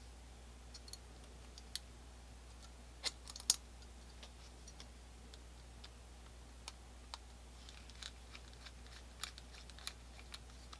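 Faint, scattered clicks and taps of small steel parts being handled as a Colt black-powder revolver's trigger and trigger-bolt spring are fitted into the frame. The loudest taps come about three seconds in, with more light clicks near the end, over a faint low hum.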